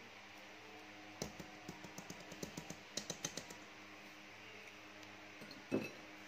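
Wire whisk and silicone spatula clicking against a stainless steel mixing bowl while cake batter is folded: a run of light clicks from about a second in, several a second, then one louder knock near the end, over a faint steady hum.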